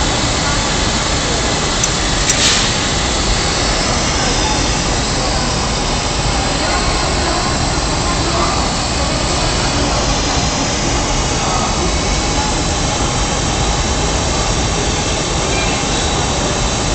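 Steady loud roar of a glass furnace and its burners and blowers in a glassworks hot shop, with a short sharp tap about two seconds in.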